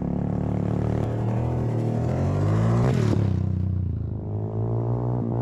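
Kayo 125 YX pit bike's 125 cc engine coming up at speed and passing close about three seconds in, its pitch dropping as it goes by, with a rush of gravel noise. Background music plays throughout.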